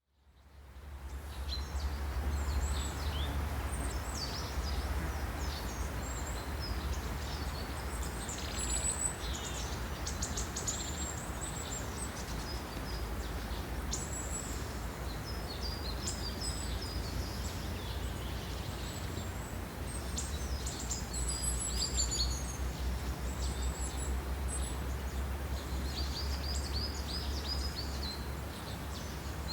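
Forest ambience of several small birds singing, with many quick high chirps and trills overlapping, over a steady low rumble; it fades in over the first second or so.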